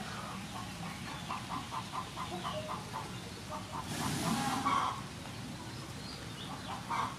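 Birds calling in the background: runs of short repeated notes, about five a second. A brief, louder noise about four seconds in.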